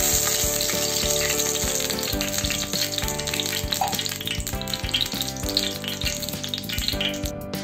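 Cooking oil sizzling and crackling as it heats in a hot, dry aluminium pot just after being poured in. The sizzle is strongest at first and eases slowly, under background music.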